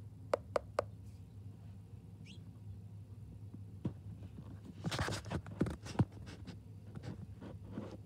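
A small bird pecking in a window feeder: a quick flurry of beak taps and clicks on the feeder and its sunflower seeds about five to six seconds in. Three sharp taps come just after the start.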